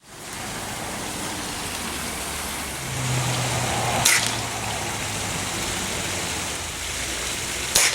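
Two sharp pellet gun shots, one about four seconds in and one near the end, over a steady background hiss.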